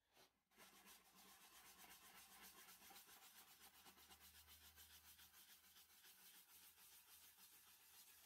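Faint friction hiss of a shellac-soaked cloth rubbing on a macrocarpa pine bowl turning on the lathe, with a fast, fine, even rhythm, over the lathe's low steady hum. It starts about half a second in.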